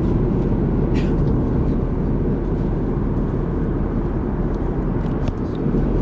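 Steady low rumble of airliner cabin noise inside an Airbus A380 in flight, with a couple of faint clicks.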